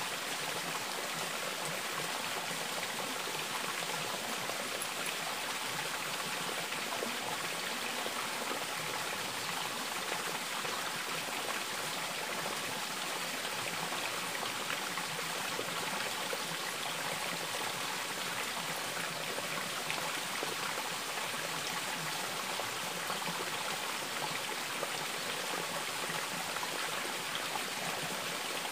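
Running stream water, a steady, unbroken rush.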